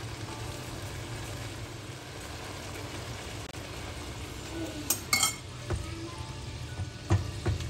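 Food sizzling in a pan as it is stir-fried, with a few sharp clinks of a utensil against the pan about five seconds in and again near the end.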